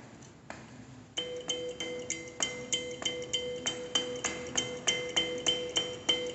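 Fahn Dee kalimba, metal tines on a wooden soundbox, being plucked in a steady run of ringing notes, about three a second, over a low note that keeps sounding. The notes start a little over a second in, after a few faint clicks.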